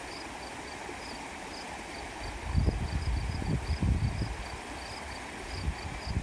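Steady rush of flowing water under a high chirp that repeats about three times a second. About two and a half seconds in, a low gusting rumble rises for about two seconds.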